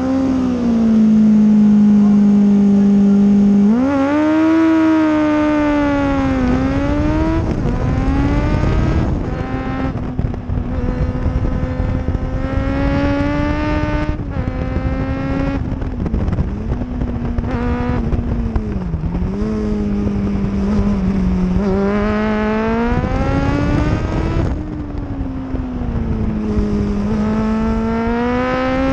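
Kawasaki ZXR inline-four racing motorcycle engine. It is held at steady revs on the start line for about four seconds, then the bike launches and accelerates hard. The engine note climbs with each burst of throttle and drops sharply at every gear change and when braking for bends.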